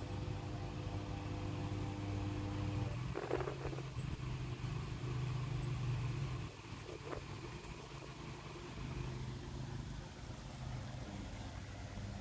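A steady, engine-like low motor hum that drops away about halfway through, with two short scuffing noises, one near the start and one a little after the middle.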